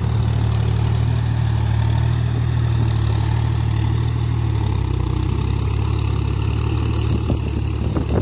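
John Deere tractor's diesel engine running steadily while it pulls a cultivator on cage wheels through wet soil. The engine note drops slightly about halfway through.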